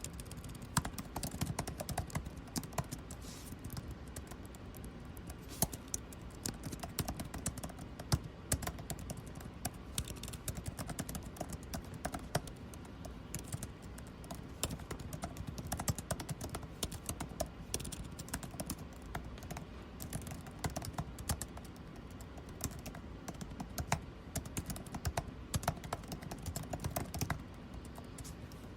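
Continuous, irregular typing on a computer keyboard, many quick key clicks, over the steady hum of air conditioning.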